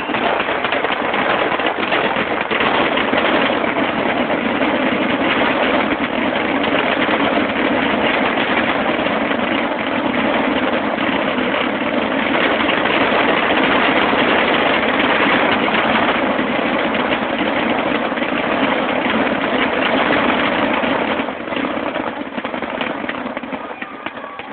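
Fireworks grand finale: a dense, continuous run of aerial shell bursts merging into one another, dropping off about 21 seconds in.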